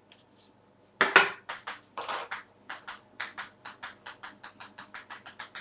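Table-tennis balls clicking and bouncing as they are swept along and off a wooden rail: after a brief pause, a quick run of sharp clicks, the first the loudest, coming slightly faster as it goes on.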